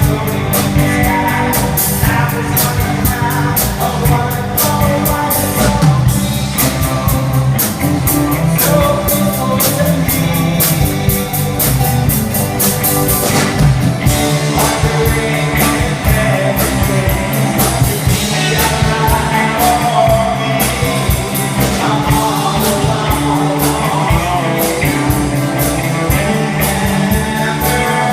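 Rock band playing live, with guitar, drum kit and a singer.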